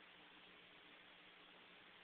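Near silence: a faint, steady hiss with a low hum.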